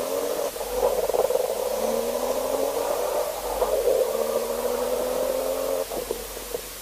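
Volkswagen Golf R32's 3.2-litre VR6 engine and exhaust running at raised revs, the pitch climbing slowly in a few stretches, then falling away about six seconds in.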